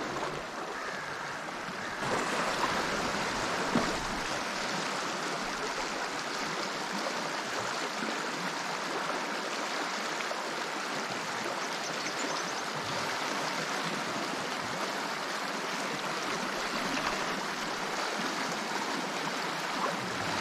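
River current rushing steadily, a little louder from about two seconds in.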